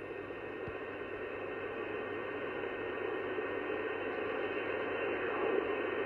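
Static hiss from an sBitx shortwave transceiver's receiver, tuned to 27.555 MHz upper sideband on the 11-metre band, with no station talking between transmissions. It is an even, muffled hiss cut off above the voice range that slowly grows a little louder.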